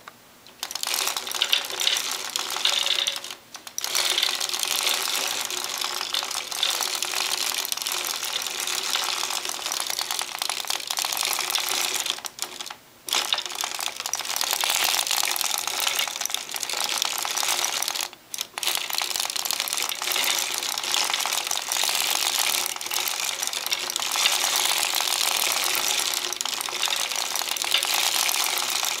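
Hand-cranked 1908 Gearhart circular sock knitting machine with its ribber, knitting 3x1 rib: a fast, dense clatter of the steel needles clicking through the cams as the cylinder turns. The clatter stops briefly three times.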